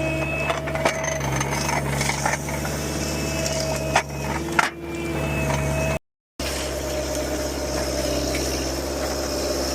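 Heavy road-construction equipment running steadily with its engine humming, with a few knocks and clatters. The sound cuts out completely for a split second about six seconds in.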